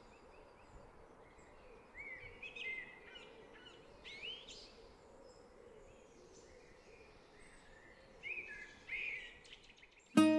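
Birds chirping in short, scattered calls over a faint steady outdoor hiss, with louder calls about two, four and eight seconds in. A plucked guitar note comes in right at the end.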